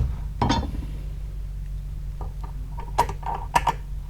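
Scattered short knocks and clicks of metal being handled, most of them bunched together about two to three and a half seconds in, over a steady low hum. No grinder is running.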